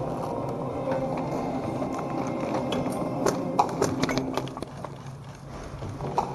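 Scattered sharp pops of airsoft gunfire at irregular intervals, most of them between about three and four seconds in, over a steady low hum.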